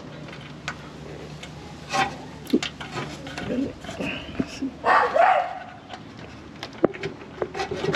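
Small clicks and scrapes of plastic retaining clips being pressed out of a turn signal light housing, with a short, wavering whine-like vocal sound about five seconds in.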